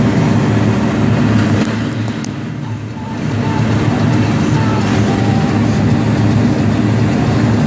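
John Deere 6330 tractor's engine running steadily, easing off briefly about two to three seconds in, while the round baler's tailgate is opened to eject a finished bale.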